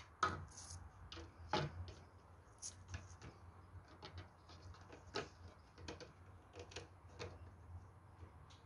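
Irregular light clicks and taps of plastic model-building wall panels being handled, slid and set against one another on a paper-covered bench, over a low steady hum.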